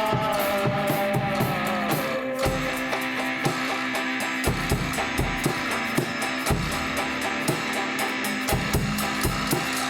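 Instrumental stretch of a rock band demo: a drum kit keeps a steady beat under guitar. A held high note slides down over the first two seconds.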